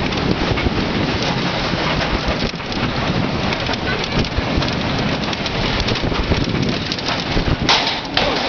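Bobsled coaster car racing down its banked half-pipe trough: a loud, steady rushing rumble of wheels on the track and wind on the microphone, with a brief sharper burst of noise near the end.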